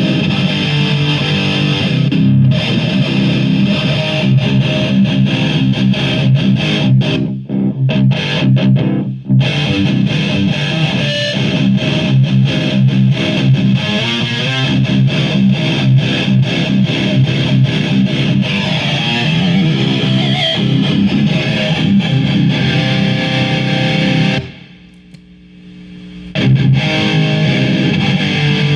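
Heavily distorted electric guitar playing a low metal riff: a Schecter with an EMG bridge pickup driven through a Maxon OD-9 overdrive pedal into a Marshall JCM 2000 amplifier. The riff breaks off briefly twice, then stops for about two seconds near the end before starting again.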